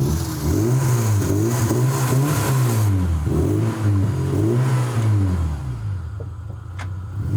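A freshly started car engine in an old rusty race car, revved up and down over and over in quick blips about once a second.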